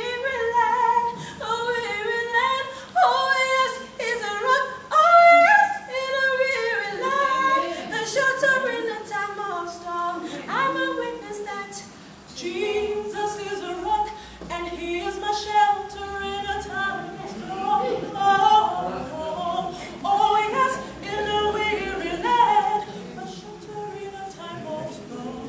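A cappella gospel vocal group of mixed male and female voices singing in harmony, with no instruments.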